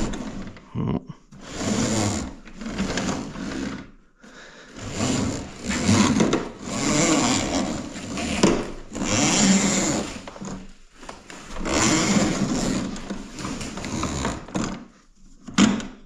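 Corrugated vacuum hose being pulled off a Giraffe Tools wall-mounted auto-retract hose reel in repeated pulls of a second or two each, the drum turning and the hose rubbing through its guide with each pull. A sharp click comes near the end.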